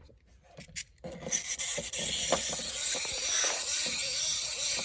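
A steady rasping, rubbing noise with a few light clicks, starting about a second in.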